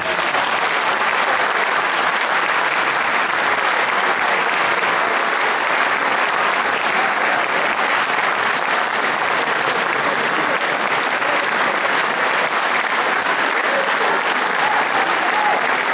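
Large audience applauding steadily at the end of a song.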